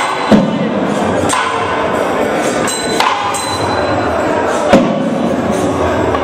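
Temple procession sound: the voices of a crowd of devotees over festival music, with a few loud, irregular drum strikes.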